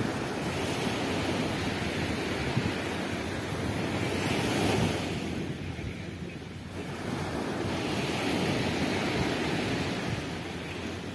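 Small waves breaking and washing up a sandy beach, a steady rush of surf that swells and eases, loudest about four to five seconds in and again around eight seconds. Wind rumbles on the microphone underneath.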